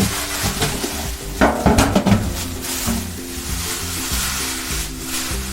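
Plastic packaging rustling and crinkling as a toaster oven is unpacked, loudest a little over a second in, with background music underneath.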